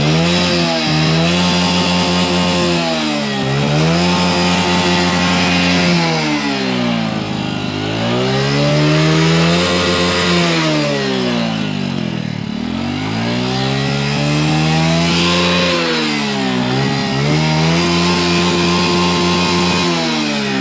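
Hero Honda Passion's single-cylinder four-stroke engine revved hard while the motorcycle stands still. The revs climb, are held for a second or two, then drop back toward idle, about five times over.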